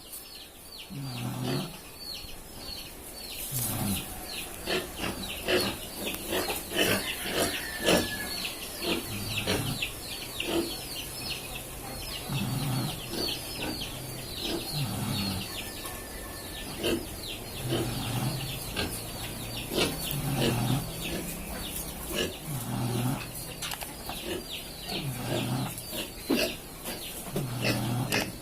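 Pig snoring in slow, regular breaths, one about every two and a half seconds, with a steady patter of short high clicks throughout.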